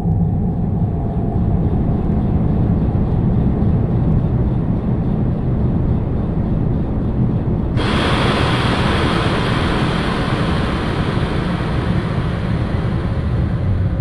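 A low, steady rumble. About eight seconds in, a sudden hiss of water rushing from a bathtub's hot tap joins it, as the tap is turned on, and it runs steadily.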